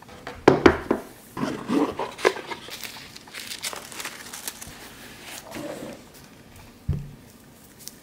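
Hands opening a cardboard gift box and unfolding the crinkly wrapping paper inside. A run of sharp paper rustles and taps comes in the first few seconds and softer rustling follows, with a short low knock about seven seconds in.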